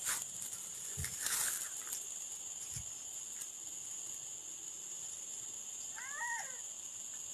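Steady high-pitched drone of insects, with a few clicks and a rustle in the first two seconds and a short arching animal call about six seconds in.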